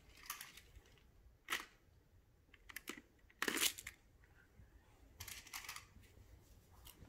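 Magna-Tiles, plastic magnetic building tiles, clacking faintly as they are handled and snapped onto a tower: about five short clicks and clatters, the loudest about halfway through.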